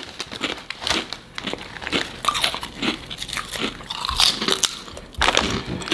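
Two people biting into and chewing crisp Lay's potato chips: a rapid, irregular series of crunches.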